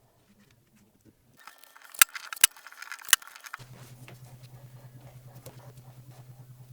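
A few sharp clicks and handling noise, then a small electric power tool starts running with a steady low hum and a fast, even pulse.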